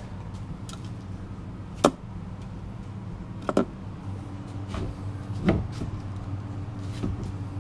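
Sharp knocks and clunks of a differential carrier with a broken Lokka locker being handled and turned over on the bench, about five in all, the loudest about two seconds in, over a steady low hum.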